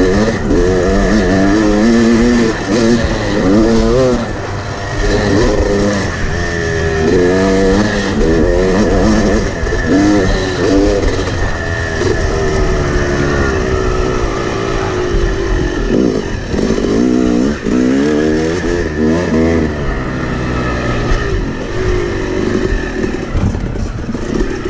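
Yamaha two-stroke dirt bike engine revving hard while riding at speed, its pitch climbing and dropping again and again as the rider works the throttle and shifts.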